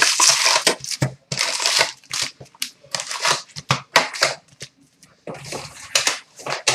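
A cardboard 2013-14 Upper Deck SP Authentic hockey hobby box being opened and its foil-wrapped card packs pulled out and set down on a counter: a run of irregular crinkles, scrapes and taps, with a short pause about five seconds in.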